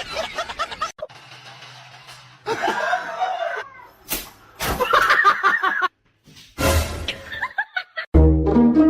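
People laughing and snickering in short bursts, broken by a few sharp slaps. Music with a steady beat starts near the end.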